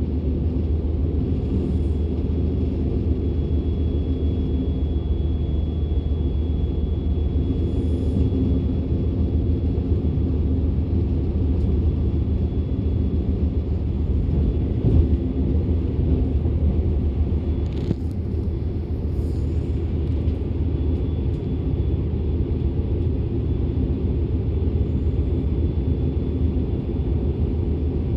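Interior running noise of a DB Class 425 electric multiple unit under way: a steady low rumble, with a faint high whine that comes and goes and a single knock about halfway through.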